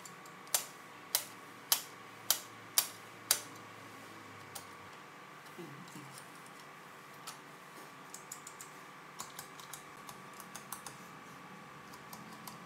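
Front-panel switches of a Sony TA-1150 integrated amplifier being flicked and pressed: six sharp clicks about half a second apart, then a run of quieter clicks and ticks as other buttons and levers are worked.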